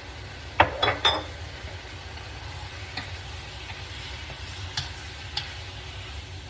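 Chicken and vegetables frying in a pan, freshly sauced, while a utensil stirs them. Three loud knocks against the pan come about half a second to a second in, then a few lighter taps, all over a steady low hum.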